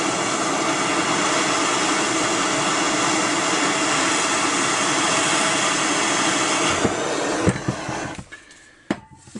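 Handheld butane cartridge torch burning with a steady hiss of the flame, heating the aluminium around a seized chainsaw muffler screw. About seven seconds in come a few short knocks, and the hiss fades away to near quiet about eight seconds in.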